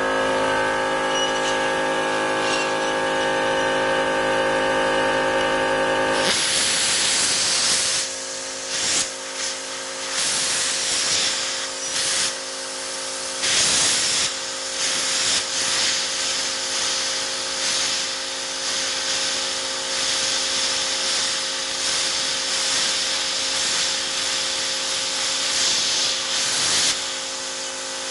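Lotos LTPDC2000D air plasma cutter, set at about 30 amps, cutting 1/8-inch steel sheet. About six seconds in the arc strikes with a sudden loud hiss, which runs on with a few brief breaks as the torch is worked around the cut. Before the cut a machine hums steadily.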